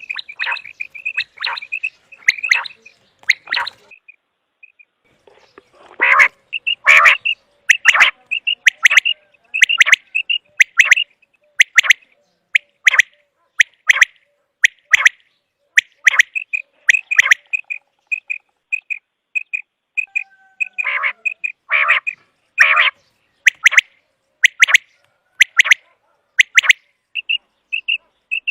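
Common quail calling: short, sharp call notes repeated over and over, about one to two a second, with fainter quick notes in between and a pause of about two seconds some four seconds in.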